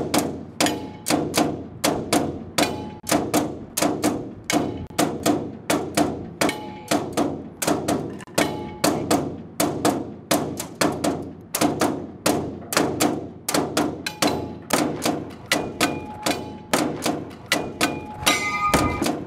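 A steady found-object percussion groove, struck on things like garbage pails and tins: a regular beat of dull thunks and knocks at about two to three strikes a second. Ringing metallic pings join in more often in the second half and turn into brighter clangs near the end.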